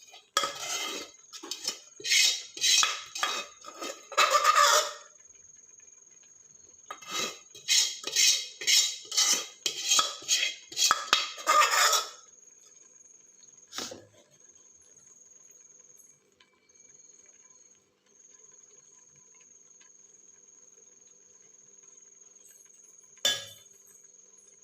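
A metal spoon clinking and scraping against a steel pan, about two strokes a second, in two runs separated by a short pause, as red chilli water is mixed and spooned over the biryani rice. Two single knocks of metal on the pan follow later. A faint, steady high-pitched whine runs underneath.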